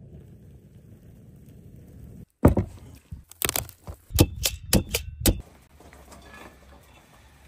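A quick run of about eight loud, sharp cracks and knocks in close succession, with a low rumble before and after.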